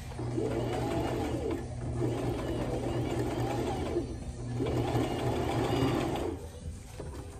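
Electric domestic sewing machine stitching in three runs of about two seconds each, its motor rising and falling in pitch as it speeds up and slows down within each run, then stopping about six seconds in. It is sewing a line of stitches to hold folded pleats in a cloth face mask.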